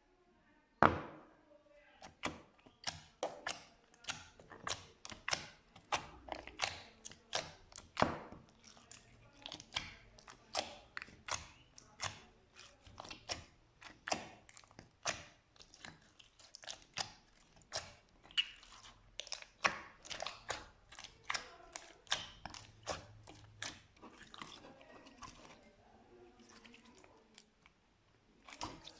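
Slime being squeezed and pressed by hand: a continual run of sharp, sticky pops and clicks, about two to three a second, the loudest about a second in.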